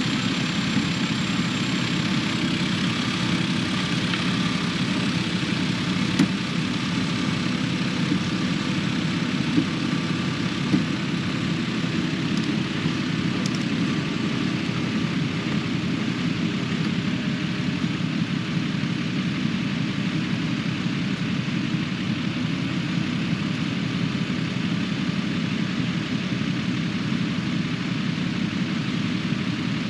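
Diesel engine of a Kubota KX080 excavator running steadily, with a few brief knocks about six, nine and eleven seconds in.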